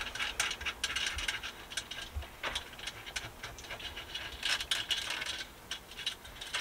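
A nut and washers being fitted by hand onto a heater mounting bolt: irregular small metallic clicks and rubbing, with a few dull knocks.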